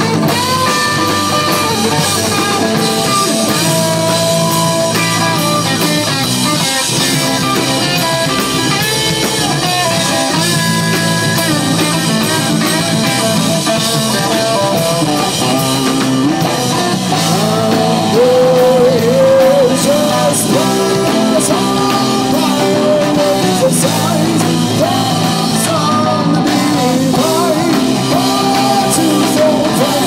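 Live rock band playing: electric guitar and drum kit, with a male singer at the microphone. Loud and continuous throughout.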